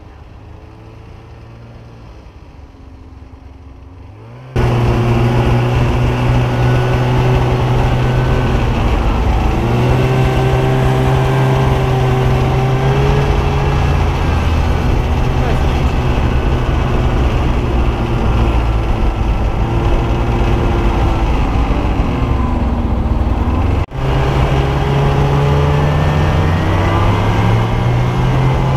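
Snowmobile engine running under way, heard from the rider's own sled, its pitch shifting up and down with the throttle and rising near the end. For the first few seconds the engine sound is quieter and more distant, then becomes loud and close.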